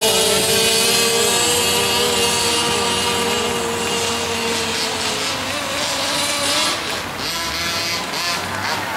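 Radio-controlled off-road cars running, their small motors giving a steady buzzing note for about the first five seconds, then the pitch rising and falling as the throttle changes near the end.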